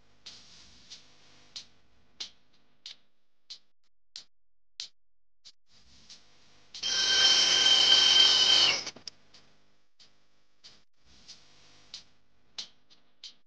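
Angle grinder run for about two seconds in the middle, a loud steady whir that stops sharply, cleaning up a broken exhaust hanger weld. Faint regular ticks of background music run underneath.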